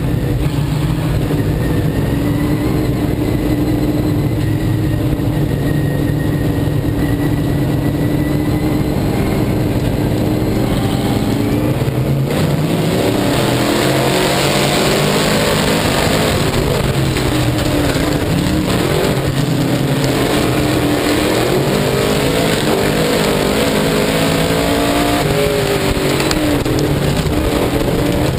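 Dirt-track sportsman modified race car's V8 engine at race pace, heard loud from on board. Its pitch rises and falls with the throttle, more markedly from about halfway, over a rush of wind and track noise.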